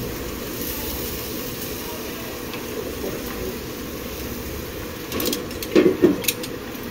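A steady mechanical hum running evenly, with a brief murmur of voices and a couple of clicks about five to six seconds in.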